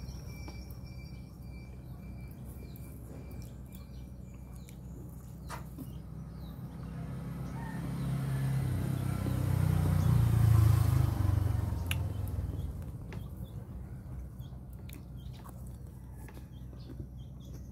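A road vehicle passing by, its rumble swelling to its loudest about ten seconds in and then fading, over a steady low background rumble. A few faint clicks are scattered through.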